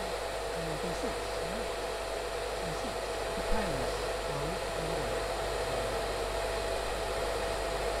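Salon-type hair dryer blowing on its lowest speed with the heater off: a steady rush of air with a thin steady whine from the motor. There is a single brief knock about three and a half seconds in.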